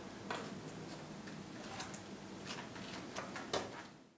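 Quiet room tone with a steady low hum and scattered light clicks and ticks. It fades out to silence at the very end.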